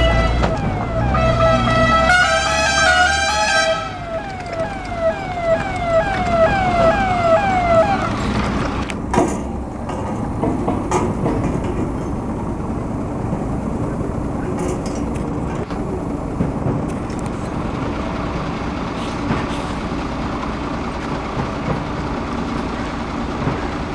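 Ambulance siren sounding: a steady tone, then a fast up-and-down warble, then quick repeated sweeps about two a second, stopping about eight seconds in. After a single knock, steady vehicle road noise continues.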